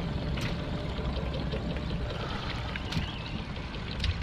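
Water sloshing against a small boat's hull over a steady low rumble, with three short sharp clicks.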